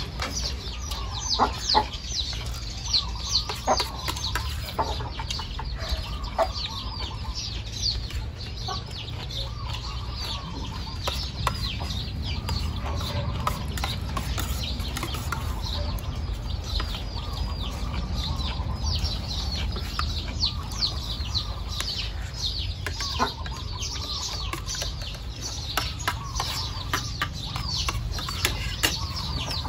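Spoons clinking and scraping on plates as people eat. Chickens cluck and small birds chirp continually in the background.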